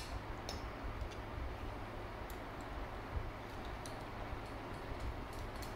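Light, scattered metal clicks, about one a second, as an Allen key works the screws out of a Predator carburetor's base plate, over a steady low hum.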